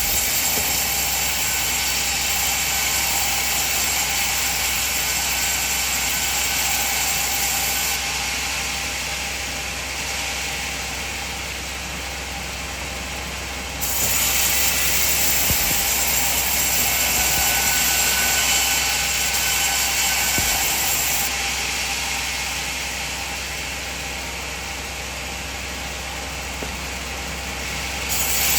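Band sawmill running and cutting coconut wood, with a loud hissing stretch about 8 seconds long, a quieter spell, then a second cutting pass of about the same length.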